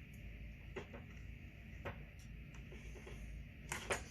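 Scattered light clicks and taps of small parts and tools being handled at a workbench while fuel line is fitted to a chainsaw fuel tank, with a small cluster of clicks near the end, over a steady low hum.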